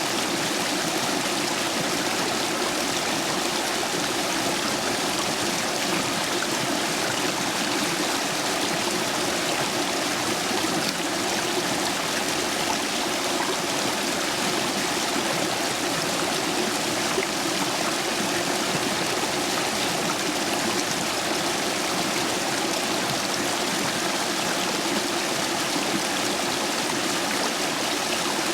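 Stream water rushing steadily over and between stepping stones, running full after heavy rain.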